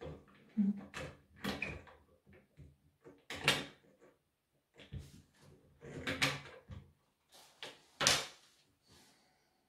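Irregular clicks and knocks from hands and a small wire tool working on a chainsaw's plastic body, with a few louder clunks, the loudest near the end.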